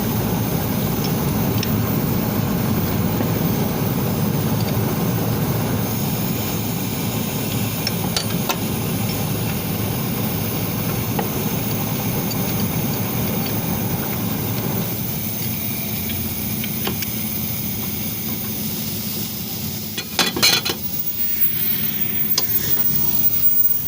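Refrigerant gas hissing steadily out of a refrigeration compressor's service valve opened a little to release the pressure, over the drone of running machinery; the hiss eases off about fifteen seconds in. Sharp metal clinks sound near the end.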